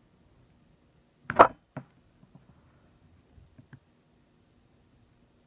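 Small clicks and ticks of a plastic guitar pick prying around the edge of an iPhone 6s screen, with one louder, brief noise about a second and a half in and a sharper click just after.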